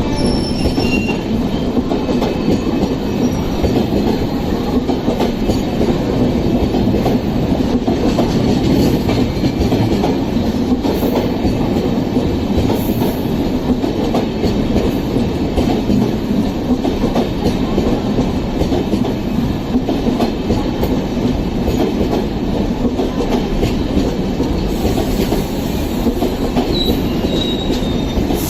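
Rajdhani Express passenger coaches passing close at speed: a steady, loud rail rumble with wheels clattering over the track, and a couple of brief faint wheel squeals, one at the start and one near the end.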